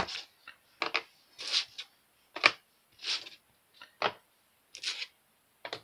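Hard cast epoxy resin pieces being picked up, stacked and set down on a tabletop: about a dozen short, irregular clacks and scrapes of resin on resin and on the table.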